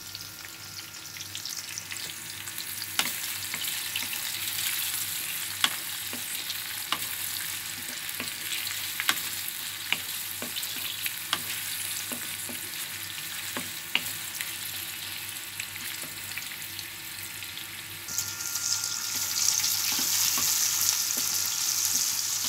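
Sliced onions, garlic and ginger sizzling in hot oil in a wok, stirred with a wooden spatula that clicks and scrapes against the pan every second or two. The sizzle grows louder near the end.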